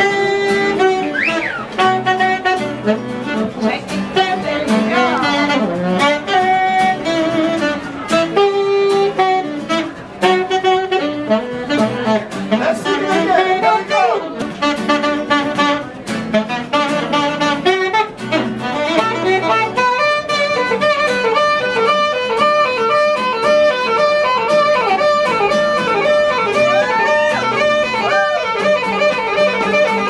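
A live band playing, with guitar and saxophone. About two-thirds of the way through, the playing turns busier, with quick repeated notes.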